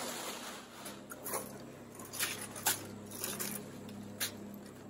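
Soft rustling with scattered light clicks and taps as a fabric tunic and its packaging are handled and unfolded.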